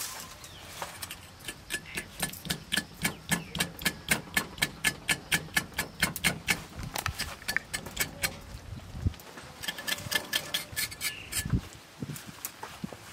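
A rapid series of sharp, evenly spaced knocks, about four a second, running for several seconds before breaking off, then a few more irregular knocks near the end.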